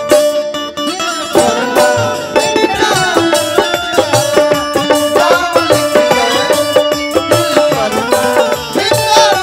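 Bhojpuri folk stage band playing an instrumental passage: hand drums keep a steady beat under held notes and a wavering melody line.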